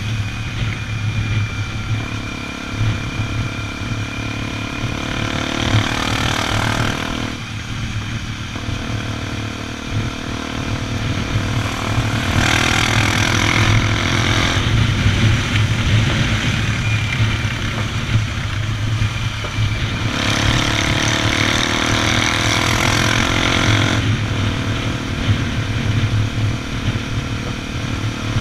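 Honda XR 250 Tornado's single-cylinder four-stroke engine running steadily under way. A broad rushing noise swells over it three times, for a few seconds each.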